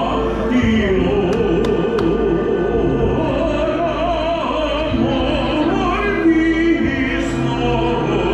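Live music with a wavering, vibrato-laden melody over sustained low notes, with three sharp cracks between one and two seconds in.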